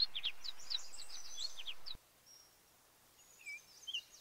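Small birds chirping: a quick run of short, high, falling chirps for about the first two seconds, then a few scattered chirps near the end.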